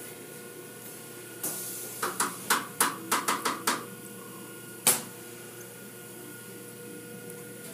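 Automatic tunnel car wash machinery running with a steady hum and a light hiss, broken by a quick run of about eight sharp knocks over two seconds and one louder knock a second later.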